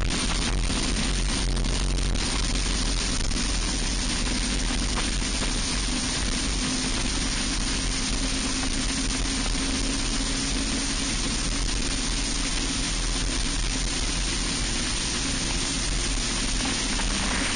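Racing kart engine running flat out, heard from an onboard camera under heavy wind rush. The engine note climbs a little through the middle as the kart runs down the straight.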